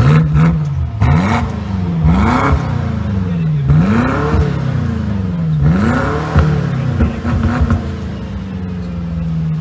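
BMW M5 engine revved hard again and again, its pitch climbing and dropping about five times, then settling to a steady running note near the end.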